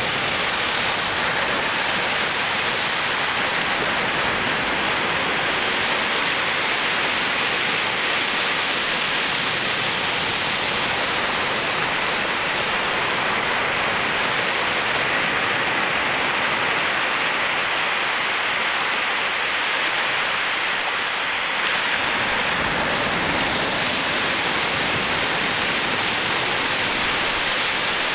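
Ocean surf washing onto a sandy beach: a steady hiss of breaking waves, a little deeper toward the end.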